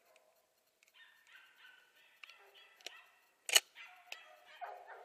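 Hunting dogs baying on a wild boar hunt: a run of yelping, overlapping calls starting about a second in. A single sharp click about three and a half seconds in is the loudest sound.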